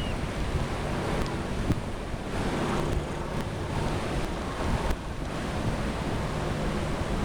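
Wind buffeting the microphone over a steady rushing of surf, with a faint low drone underneath.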